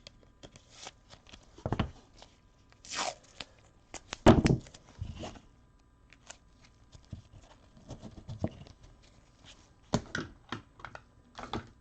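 Plastic scraping, rustling and small clicks as a trading card is fitted into a 130-point magnetic one-touch card holder, with a louder knock about four seconds in.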